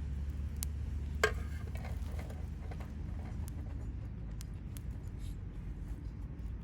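Wood fire crackling, with scattered sharp pops and one loud crack about a second in, over a steady low rumble.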